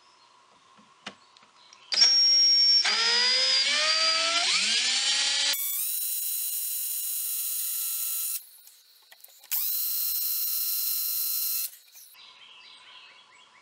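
DeWalt cordless drill spinning a roll pin with a ground tip, used as a hollow extractor to cut around a screw snapped off flush in a wooden chair joint. It runs in two goes: the first about six seconds long, its whine wavering in pitch as the pin bites and then running steady and higher; after a short pause, a second steady run of about two seconds.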